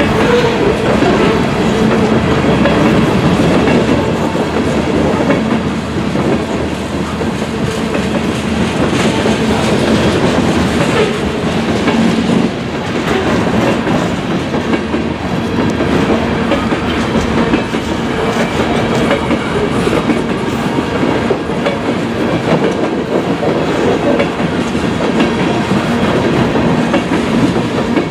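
Freight train of refrigerated boxcars rolling past, steel wheels clicking over rail joints over a steady, loud rumble.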